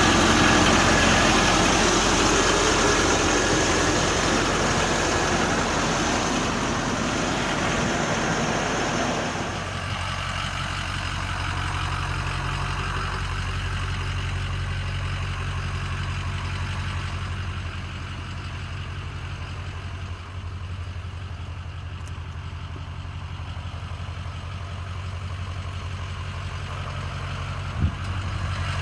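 An engine running, louder for about the first ten seconds, then dropping to a steady idle. A single sharp knock near the end.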